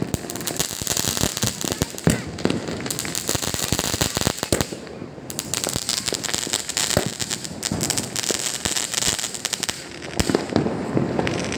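Diwali fireworks and firecrackers going off: a dense, irregular run of crackling pops and sharp bangs over a steady high hiss, with the loudest bangs about two seconds in and again near the end.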